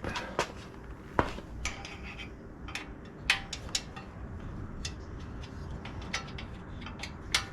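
Metal tools clinking and tapping on an e-bike's brake caliper and its mounting bolts: a string of sharp, irregular clicks, the loudest about a second in, about three seconds in and near the end.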